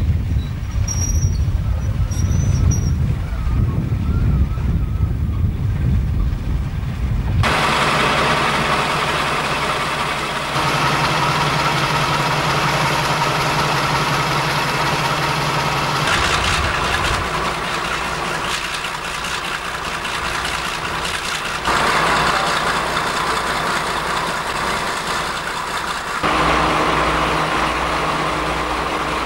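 Class 52 'Western' diesel-hydraulic locomotive's twin Maybach diesel engines idling with a steady hum, its tone shifting at several points. The first few seconds are a low rumble with wind on the microphone.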